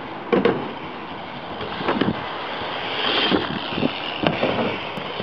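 Small hard wheels rolling over a concrete skatepark surface, a steady rumble broken by several sharp clacks and knocks, some in quick pairs.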